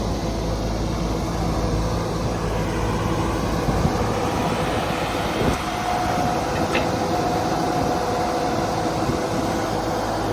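An engine running steadily, with a constant mechanical hum and a few faint ticks.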